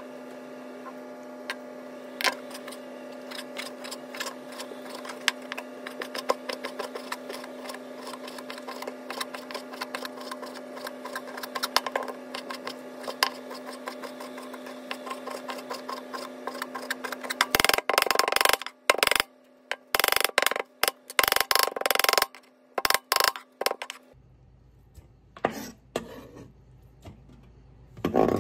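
Kitchen knife cutting raw rockfish into small pieces on a plastic cutting board: light, irregular taps, then a few seconds of louder, rapid chopping and scraping past the middle. A steady electrical hum runs underneath and cuts off about four-fifths of the way through.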